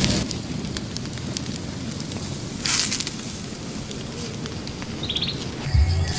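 Open wood fire crackling, with scattered sharp pops and a brief hissing flare a little under three seconds in. A few short high bird chirps come about five seconds in, and a low hum with thumps starts near the end.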